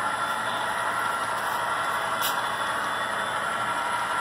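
Model train cars rolling over the track as a steady rolling rumble and hiss, with one sharp click about two seconds in.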